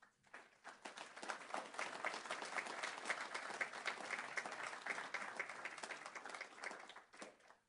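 Audience applauding: many hands clapping at once, starting suddenly, swelling within the first second and dying away near the end.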